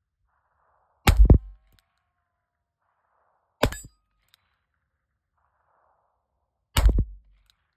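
Three shots from a Ruger New Model Single Six .22 LR single-action revolver, about three seconds apart. The first and last are each followed at once by a ringing clang from a steel target being hit.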